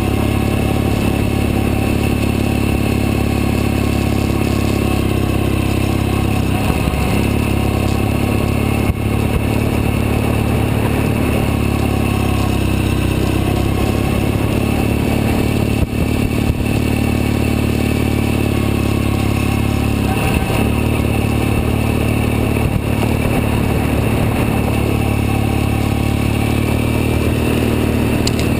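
Triumph Thruxton's parallel-twin engine running at a steady throttle while the bike is held leaned over through a long continuous turn.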